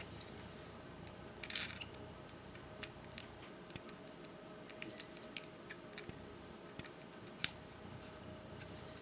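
Faint small clicks and ticks of a plastic IC chip socket being pushed into a circuit board's holes while the board is handled, with a brief rustle about a second and a half in. The clicks come irregularly through the middle, and the sharpest one falls near the end.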